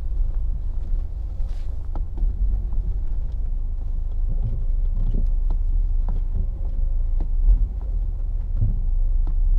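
Steady low road rumble inside the cabin of a first-generation Volvo XC90 driving slowly over small bumps, with faint scattered clicks and a few soft thumps. The clicks are the faint hint of the intermittent rear-suspension squeak and knock being hunted, which the driver compares to a stabiliser link knocking and barely hears at this moment.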